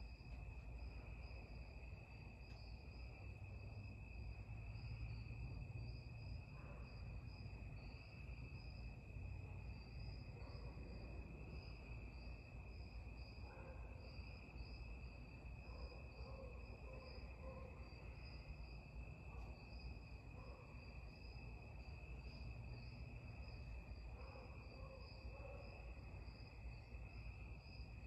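Harbor Breeze Lakeside II ceiling fan running, a faint low hum and whoosh of the spinning blades. It is stuck on low speed whatever the setting because its capacitor is bad. A steady high-pitched trill sits over it.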